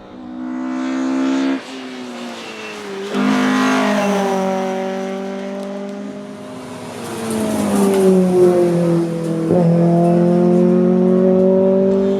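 Fiat Abarth 131 Rallye's twin-cam four-cylinder engine under hard acceleration, heard from inside the cabin: the revs climb, fall sharply with an upshift about 1.5 s in, pull hard again, ease off for a few seconds, then build again with another quick dip near the end.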